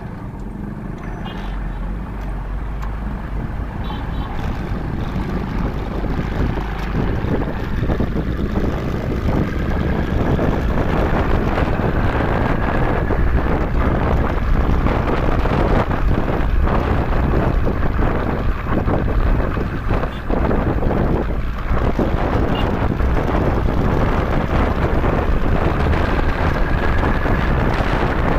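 Wind rushing and buffeting over the microphone of a moving motorcycle, with the ride's road and engine noise beneath it. The rush grows louder over the first ten seconds or so as the bike picks up speed.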